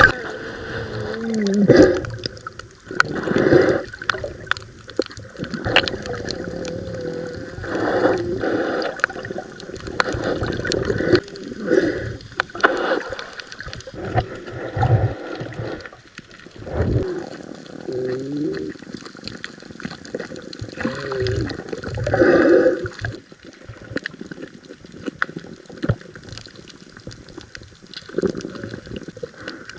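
Water sloshing and gurgling in irregular surges, with a few brief wavering tones.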